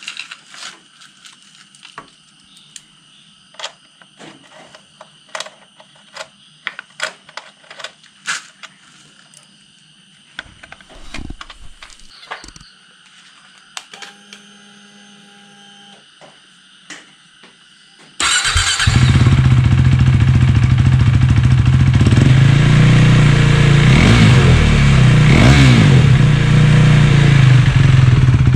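KTM Duke 390's single-cylinder engine starting about two-thirds of the way in after some faint clicks, then idling loudly through a newly fitted aftermarket Akrapovic-style slip-on exhaust. There are a few throttle blips, with the pitch rising and falling.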